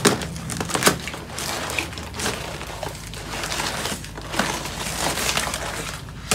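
White paper wrapping crinkling and rustling as it is handled and pulled around a taped bundle of firecrackers, with irregular sharp crackles and snaps.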